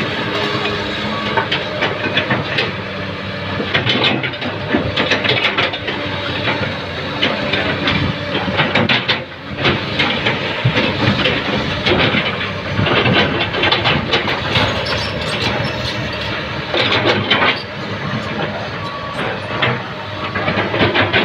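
Komatsu PC200 hydraulic excavator working, its diesel engine running steadily under irregular clanking and rattling that comes and goes.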